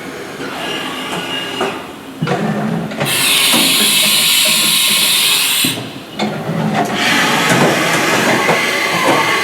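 Haas VF-2 CNC vertical mill homing its axes and changing tools, with the machine's motors and mechanisms running. A loud hiss of air lasts about two and a half seconds in the middle of the tool change.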